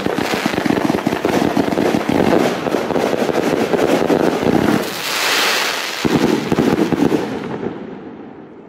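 A 30 mm fireworks battery (cake) firing a rapid volley of shots, with a brief hissing crackle about five seconds in. The launches stop about seven seconds in and the sound dies away.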